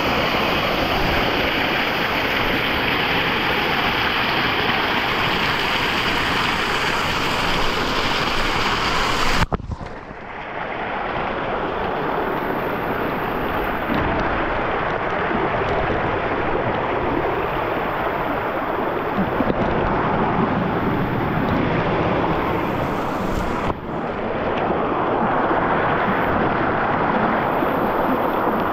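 Mountain stream flowing, a steady rush of water that breaks off abruptly twice, about nine and a half and twenty-four seconds in.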